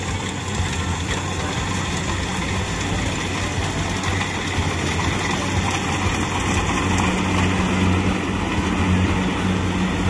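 Kubota rice combine harvester running steadily as it drives in, getting a little louder as it comes closer.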